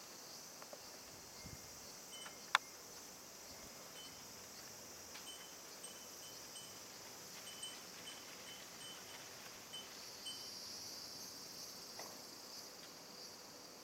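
Faint steady high-pitched insect chorus, with a run of short high pings, about two or three a second, from about two seconds in to about nine seconds in, and one sharp click a couple of seconds in.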